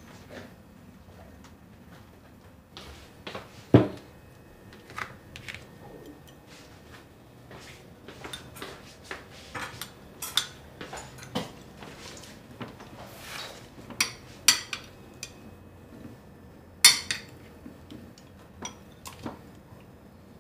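Scattered light clinks and knocks of household objects being handled, with a louder knock about four seconds in and another about seventeen seconds in.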